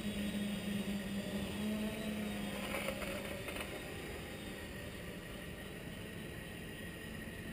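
Quadcopter's four brushless motors (NTM 28-26, 1200 kv) and propellers humming steadily in flight at a steady pitch, growing fainter after about three and a half seconds.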